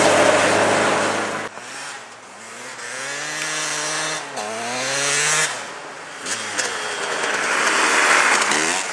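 A rally hatchback's engine runs hard as the car slides on snow, then cuts off abruptly. A dirt bike engine follows, revving up in rising sweeps broken by gear changes as the bike accelerates past.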